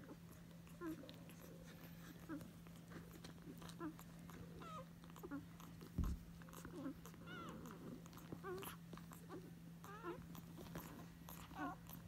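Day-old basset hound puppies squeaking and grunting while nursing: many short, thin squeaks a few times a second over a low steady hum. A single dull thump about six seconds in is the loudest sound.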